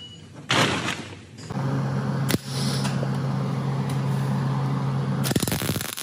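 Wire-feed (MIG) welder arc welding a steel rod: a short burst about half a second in, then a steady buzzing, crackling bead from about a second and a half, with a sharp click partway through, turning louder and harsher near the end as the sparks fly.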